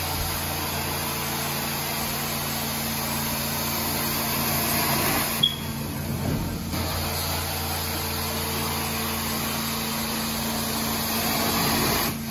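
Hot-water carpet extraction wand pulled across carpet: a steady rush of vacuum suction through the wand with a constant low machine hum underneath. A short sharp squeak about five seconds in, after which the suction sound shifts briefly.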